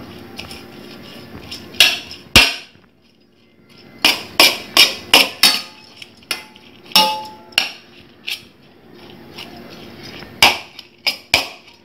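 Steel spoon clinking and scraping against a stainless steel bowl while steamed ragi vermicelli is stirred and fluffed into loose strands. About a dozen sharp, irregular clinks with softer scraping between.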